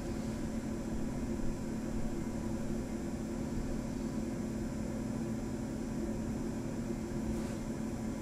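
Steady low hum and hiss of room tone, unchanging, with no distinct event.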